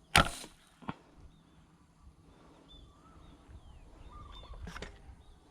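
A sharp crack with a short splash-like hiss about a quarter second in, a smaller click near one second, and another sharp crack near five seconds: shots fired at fish in the water. Small birds chirp throughout.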